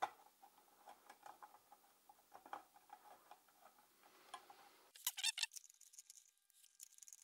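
Faint, scattered metallic ticks and clicks of a hand driver turning a bolt into the pull-start cover of a 50cc two-stroke pocket bike engine, with a short, louder cluster of clicks about five seconds in.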